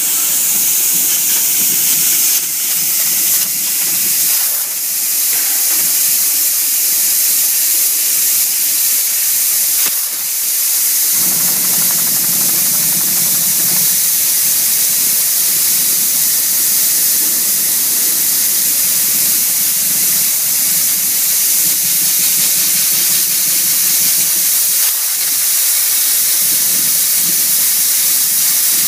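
Fiber laser cutting machine cutting 1 mm aluminium sheet: a loud, steady hiss of assist gas jetting from the cutting head. A few short, sharp bursts come in the first ten seconds, and a low hum joins from about eleven seconds in.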